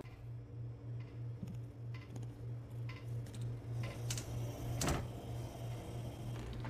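A low hum pulsing about three times a second under scattered ticks, with one loud sharp click about five seconds in as a gas stove knob is turned and the burner lights.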